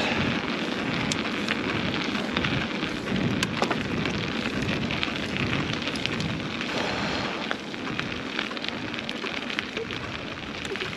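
Mountain bike being ridden slowly up a rough trail: tyres crackling over stones and grit, with scattered clicks and knocks from the bike, under wind noise on the microphone.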